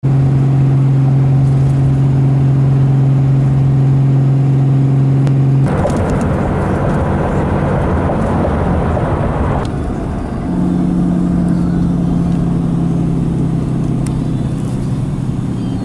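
Engine and road noise inside a moving vehicle's cabin: a steady low drone that changes abruptly about six seconds in to a rougher rushing noise, then about ten seconds in to a different steady drone.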